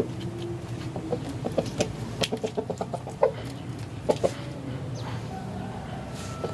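Chicken clucking in a quick run of short, repeated notes between about one and four seconds in.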